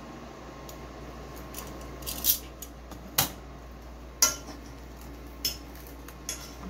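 Metal kitchen tongs and a knife knocking and clinking on a plastic cutting board as a breaded pork cutlet is set down and cut: several sharp separate clicks, the loudest a few seconds in.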